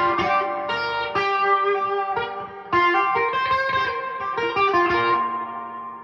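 Electric guitar played through a Princeton Reverb clone tube amp with its spring reverb set at 4: a run of picked single notes and chords. Near the end the last notes are left to ring and fade out.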